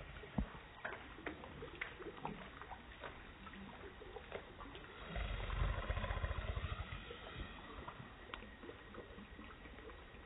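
A small dog's claws ticking on a wooden deck as it walks, as scattered light clicks over a steady hiss, with a low rumble on the microphone from about five to seven seconds in.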